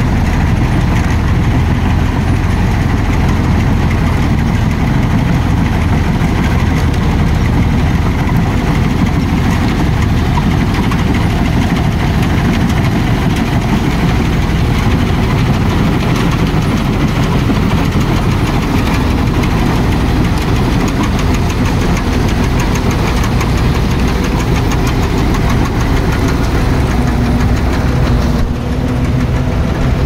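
Balkar B-525 combine harvester running steadily while cutting and threshing finger millet: its engine and threshing machinery give a loud, constant drone under working load.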